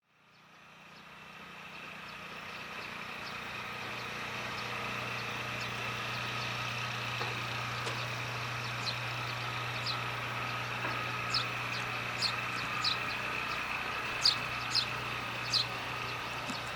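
Outdoor ambience fading in: a steady low hum of vehicles. From about halfway in, a bird's short, sharp chirps come roughly once a second and grow louder.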